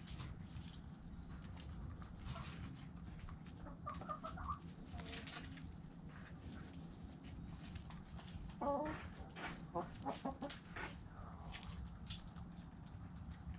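Hens clucking: a short call about four seconds in, then a quick run of clucks about nine seconds in. Light clicks and scratches come in throughout over a steady low rumble.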